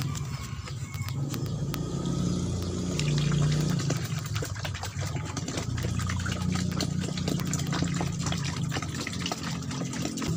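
Liquid organic fertilizer pouring in gulps from a tilted plastic jerrycan and splashing into a tub of water. A steady low engine-like hum runs underneath.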